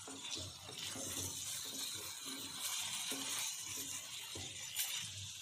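Spatula stirring potato and ivy gourd pieces with spice powders in a kadai: soft, irregular scraping strokes over a faint, steady sizzling hiss.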